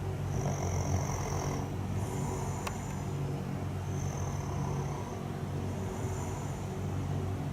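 A person snoring loudly: a deep, steady rumble, with a breath hissing in and out about every two seconds.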